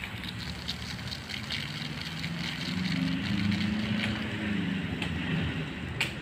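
Rice grains poured from a height in front of an electric fan, pattering steadily onto a plastic tarp as the fan blows the chaff away. A low motor hum swells and fades in the middle, and there is one sharp click near the end.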